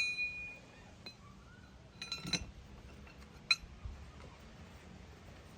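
Metal parts being handled and knocked together while fitting ball joints: a ringing clink fading at the start, a few light clinks about two seconds in, and one sharp clink about a second later.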